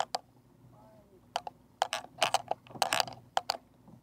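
Irregular sharp clicks and taps of fishing gear being handled aboard a small boat. They are sparse at first and come thick and fast through the second half.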